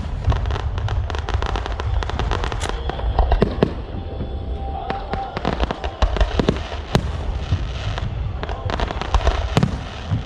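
Fireworks going off: a dense, continuous crackle of sharp bangs, many each second, with louder reports scattered through it.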